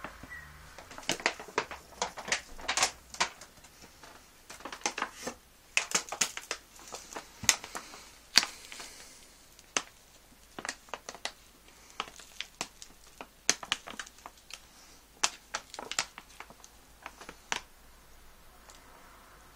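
Large plastic and foil supplement bags crinkling as they are handled and lifted out of a cardboard box: irregular sharp crackles with softer rustling between them.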